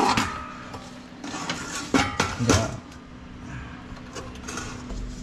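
Plastic rice cooker housing being handled and set down on a tile floor: a few knocks and rattles, the loudest a pair about two seconds in.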